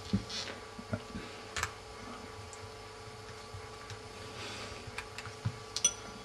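Faint scattered clicks and small taps from an iPhone 3G/3GS being handled on a table while a small screwdriver drives its two bottom screws back in. The clicks are a little louder near the end, over a steady faint hum.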